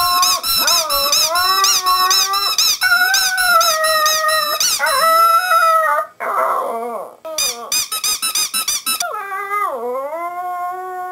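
Yorkshire terrier howling in long, wavering wails, with rapid repeated high squeaks over the howling for the first half. Near the end the howl swoops down in pitch and back up.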